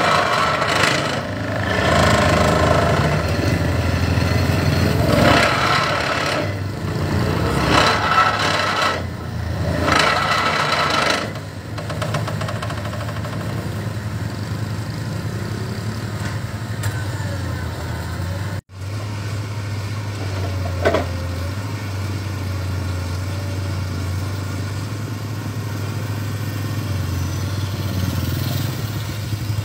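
Heavy engine of an excavator-mounted sheet-piling rig running with a steady low drone. The sound is louder and more uneven for the first dozen seconds and steadier after a split-second dropout about two-thirds of the way in.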